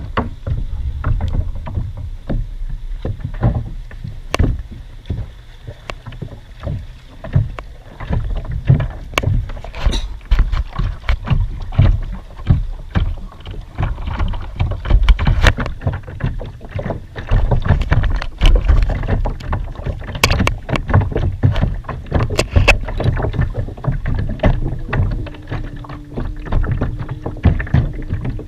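Malibu kayak on the water: water slapping against the hull, with frequent irregular knocks and clicks.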